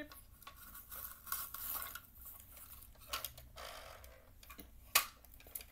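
Plastic clicks and rattles of a Bruder toy excavator's arm and bucket being worked by hand, with sharper clacks about three and five seconds in.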